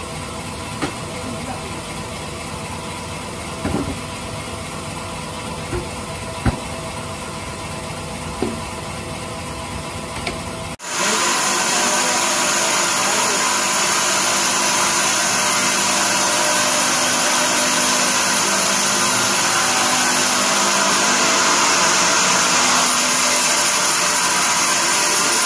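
Band sawmill running, with a few scattered knocks as a teak slab is handled. After an abrupt cut about eleven seconds in, the bandsaw blade is sawing through a teak log: louder and steady, with a bright hiss.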